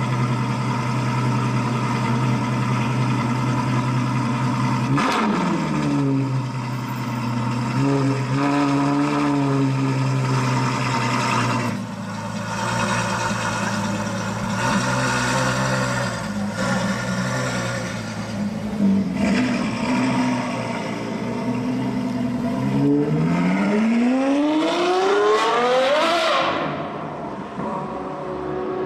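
Novitec N-Largo Ferrari F12's V12 engine running steadily at a low idle, its pitch shifting a few times. About 23 seconds in it revs up in one climb lasting about three seconds that stops abruptly.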